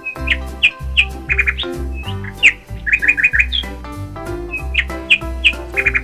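Baby chicks peeping: short, high chirps, several falling in pitch, some coming in quick runs of three or four, over background music with a low bass line.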